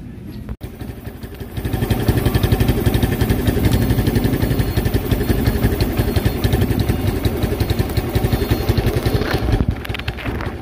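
Easy Ride 150 scooter's single-cylinder engine running with a fast, even pulse. It comes in about one and a half seconds in, holds steady, and eases off near the end.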